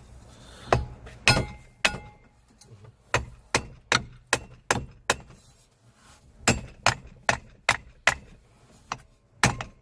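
Hammer tapping on the metal parts of a Toyota Tacoma driveshaft to split it apart and drive out the carrier bearing: a series of sharp, ringing metallic taps, about two a second, with a short pause past the middle.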